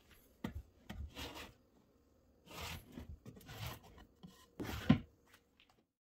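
Drawers of an IKEA KULLEN chest being slid open and shut, several short rubbing scrapes, with a sharp knock about five seconds in as the loudest sound.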